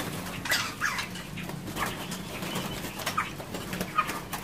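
Many small caged songbirds chirping together, an irregular scatter of short, high chirps and call notes overlapping one another.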